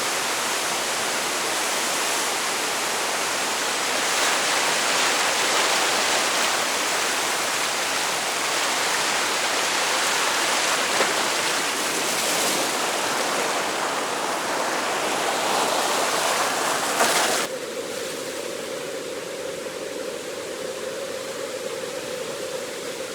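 Waterfall: a steady, loud rush of falling water. About seventeen seconds in it cuts abruptly to a quieter, duller rush with the hiss gone.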